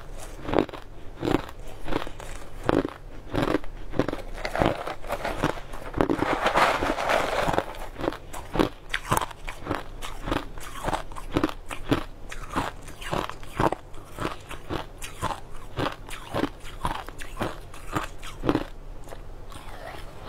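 Ice cubes crunched and chewed in the mouth: a steady run of sharp, crackling crunches, about two or three a second, bunched more densely for a moment near the middle.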